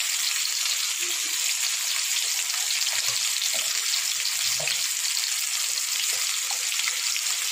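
Potato wedges and spices frying in hot oil in a kadai: a steady sizzle.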